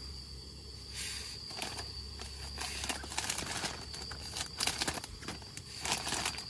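Plastic bags and food packaging rustling and crinkling as they are handled, a scatter of short irregular crackles, over a steady high insect chirr from outside.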